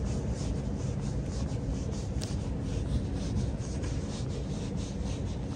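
Footsteps at a steady walking pace, about two a second, over the low steady hum of a large station concourse.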